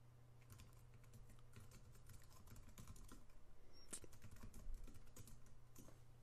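Faint typing on a computer keyboard: quick, irregular keystrokes entering a terminal command, with one louder key strike about four and a half seconds in, over a steady low hum.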